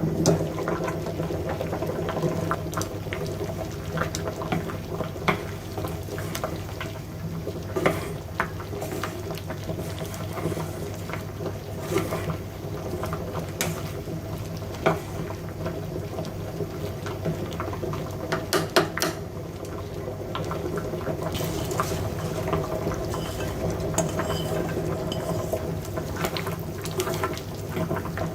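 Liquid bubbling in a cooking pot, with many scattered small clicks and ticks over a steady low hum.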